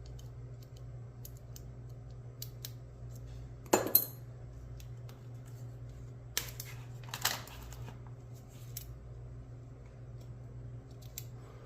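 A pick and tension wrench working the pins of a pin tumbler bike lock: faint metallic ticks and scrapes, with a pair of sharper clicks about four seconds in and two more around six and seven seconds. A steady low hum sits underneath.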